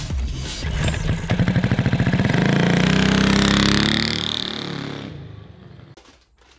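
Engine-revving sound effect from an animated channel intro: the engine pulses, then holds a strong steady high rev and fades out about five seconds in.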